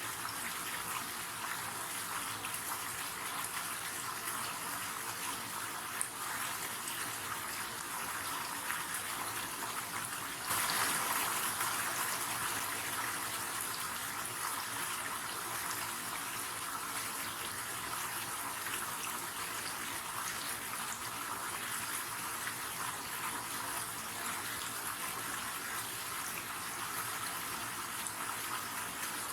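River water flowing in a steady rush, a little louder for a few seconds from about ten seconds in.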